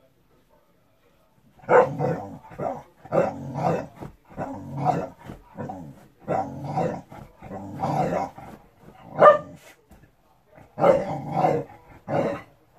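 A dog barking and growling in a rapid string of short outbursts, one to two a second, starting about two seconds in, with a brief pause about ten seconds in.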